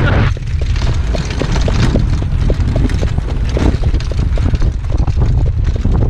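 Wind buffeting the microphone of a camera riding on a harness-racing sulky behind a horse at speed: a steady low rumble with many short knocks and clatters from the hooves and the cart on the dirt track.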